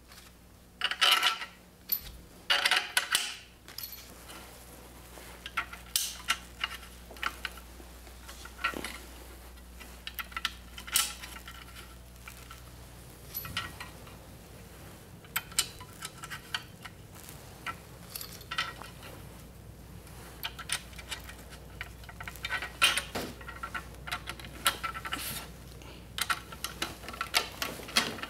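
Small metal screws clinking in the hand and clicking against a plastic bracket and aluminium tube as they are pushed into place. The clicks are scattered and irregular, with a couple of denser clusters in the first few seconds.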